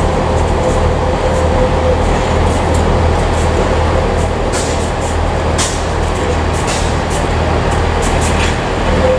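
A train's engine running with a steady low hum and a held mid-pitched tone in the first couple of seconds, with a few short high clicks about halfway through.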